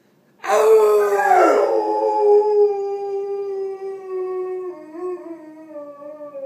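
A dog howling: one long, drawn-out howl that starts loud about half a second in, then slowly drops in pitch and fades.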